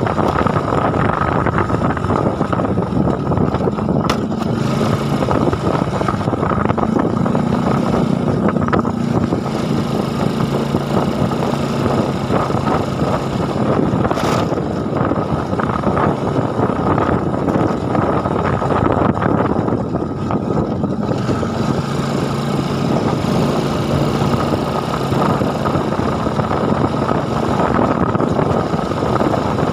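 An engine running steadily, its pitch stepping up and down a little, with wind or road noise over it.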